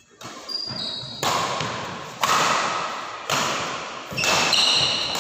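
Badminton rackets striking a shuttlecock in a fast doubles rally, about one sharp hit a second, each echoing through the hall. Short squeaks from shoes on the court floor come between some of the hits.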